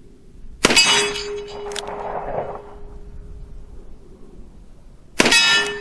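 Ruger GP100 revolver firing .38 Special rounds: two shots about four and a half seconds apart. Each shot is followed by a clang and a steady ringing tone as the bullet strikes the steel plate target.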